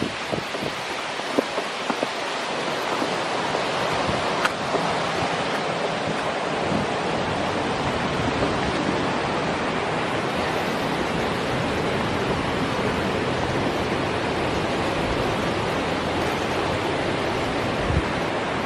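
Waterfall water rushing in a steady, even roar, with a few sharp knocks in the first two seconds.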